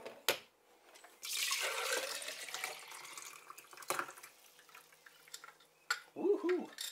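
Cold-brewed coffee poured from a glass jar into a glass French press: a splashing pour lasting about two seconds that tails off, with a few light knocks of glass. Near the end comes a brief wordless vocal sound.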